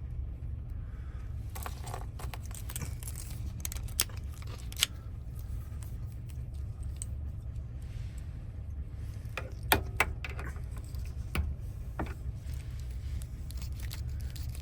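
Small metal lock parts of a 2017 Express van door lock clicking and clinking as they are handled and fitted, with a few sharper ticks about 4 and 10 seconds in, over a steady low hum.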